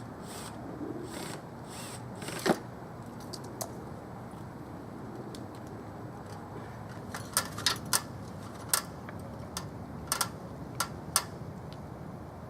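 Pieces of wood being handled and knocked together while the birdhouse is fitted back together by hand. There are a few soft rustling swishes near the start, one sharp click, and then a loose run of sharp taps and clicks later on.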